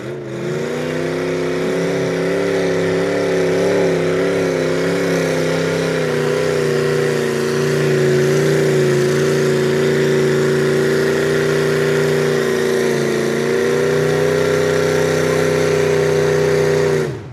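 Mud-bogging pickup truck's engine held at high revs as it plows through deep mud, a steady loud drone that wavers slightly in pitch, then cuts off suddenly at the end.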